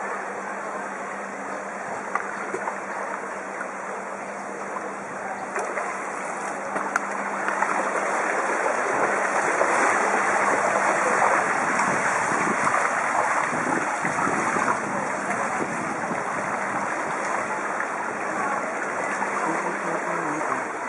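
Fast-flowing floodwater rushing and splashing around a bicycle's wheels as it rides through a flooded street, swelling louder for several seconds in the middle. A faint steady low hum runs under the water and dies away near the end.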